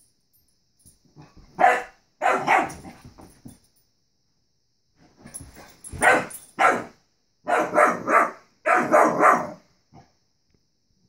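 Young dog barking in short bursts at a balloon it is playing with. A few barks come about two seconds in, then a quick run of barks from about six seconds on.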